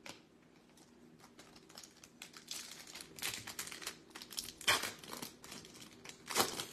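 Foil wrapper of a Topps Chrome baseball card pack being torn open and crinkled by hand: a run of crackles with two louder crinkles in the second half.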